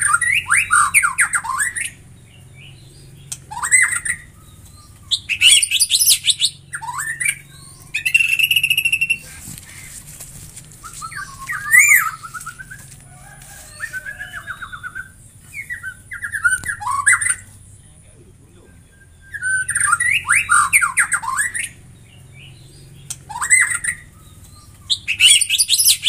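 White-rumped shama singing: loud, varied phrases of clear whistles, pitch glides and rapid trills, about ten bursts of a second or two each, separated by short pauses.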